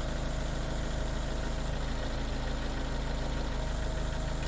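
Engine idling steadily with an even low hum.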